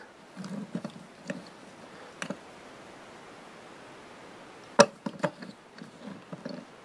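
Small plastic toy monster truck being handled and turned in the fingers: a few soft clicks and light knocks, with one sharper click a little past halfway followed by a couple more.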